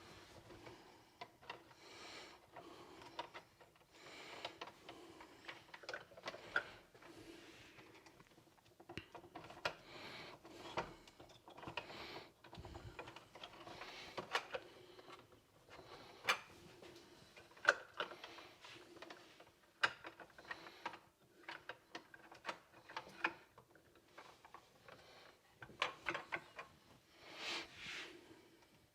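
Faint, scattered clicks and rattles of the hard plastic parts of a Kreepy Krauly Racer pool cleaner being handled while its axle and bearing are fitted back in, over a faint steady hum.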